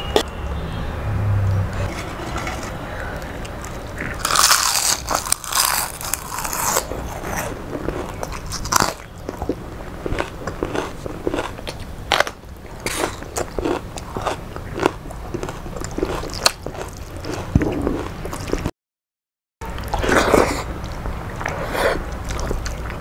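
A person eating close to the microphone: crunchy bites and chewing. A run of loud crunches comes about four to seven seconds in. The sound cuts out completely for about a second near the end.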